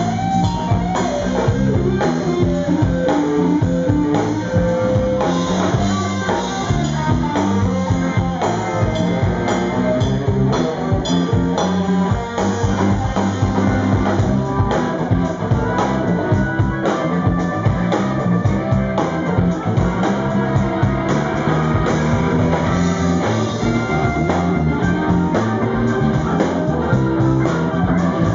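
Live rock band playing: a Les Paul-style electric guitar out front over a drum kit, loud and continuous.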